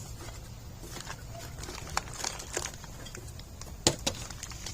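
Scattered light clicks and taps of brake pads and their packaging being handled, with a sharper click a little before the end, over a low steady hum.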